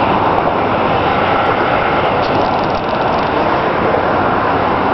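Steady rushing noise of wind and water on the microphone, with no engine tone or distinct knocks.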